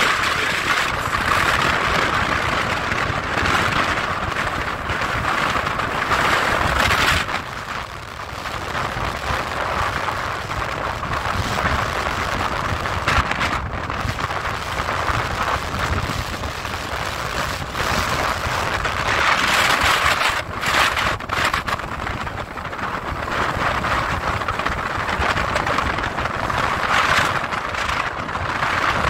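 Strong storm wind blasting across the microphone in surging gusts, a steady rumbling roar, with heavy surf breaking beneath it.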